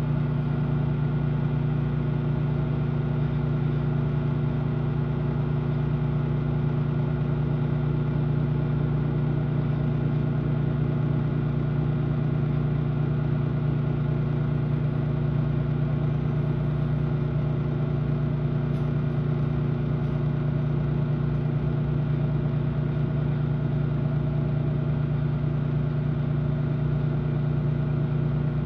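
Microwave oven running, a steady low hum with fan noise that does not change.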